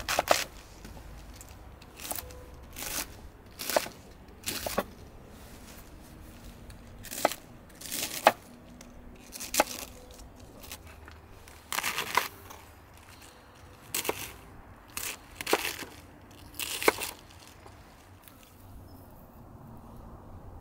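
Kitchen knife slicing through a cabbage wedge on a wooden cutting board: a dozen or so crisp, crunchy cuts at uneven intervals, roughly one a second. The cuts stop a couple of seconds before the end.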